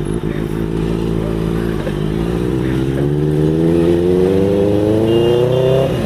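Benelli TNT 600i's inline-four engine through an IXIL aftermarket exhaust, running steadily and then revving up, its pitch climbing over about four seconds before dropping off sharply near the end.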